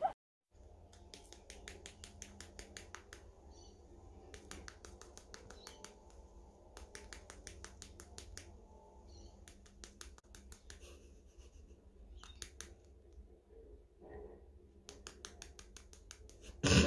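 Cockatiel's beak tapping in quick runs of sharp clicks, each run lasting a second or two with short pauses between, and a louder burst of sound near the end.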